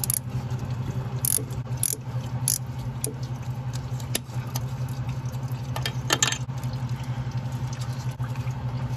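Scattered metallic clicks and scrapes of a ratchet and socket loosening a 10 mm bolt on an engine coolant pipe, over a steady low hum.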